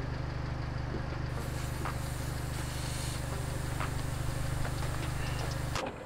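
Pickup truck engine idling steadily, and from about a second in a steady hiss of air escaping from the tire through a screw-on tire deflator set to stop at 20 PSI. Both cut off just before the end.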